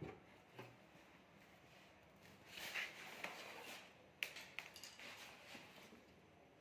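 Faint handling sounds: a soft rubbing scrape about two and a half seconds in, then a few light clicks a little over a second later.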